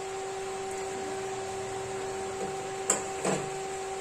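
Gulgule deep-frying in hot oil in a kadai, a steady sizzling hiss over a steady low hum. Near the end a slotted metal spatula clicks twice against the pan while turning the fritters.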